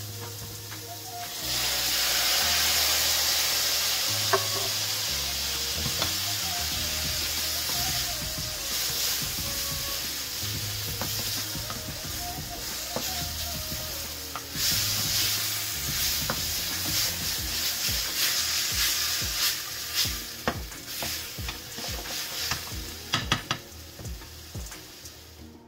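Sliced mushrooms and shallots sizzling in a hot frying pan while being stirred with a wooden spatula. The sizzle swells about a second and a half in and again about halfway through, and in the second half the spatula clicks and taps against the pan more and more often.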